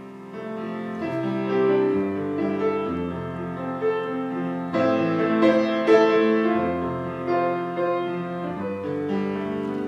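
Piano playing a melody over held chords, each note ringing on as the next one sounds.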